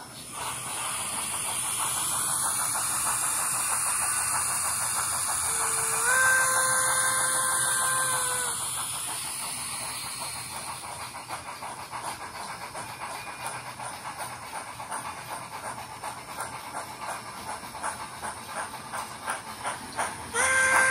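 Sound decoder of an Nn3 model steam locomotive playing through its tiny speaker: a steady steam hiss, a whistle blast of about two seconds about six seconds in, then rhythmic chuffing, and a second whistle starting just before the end.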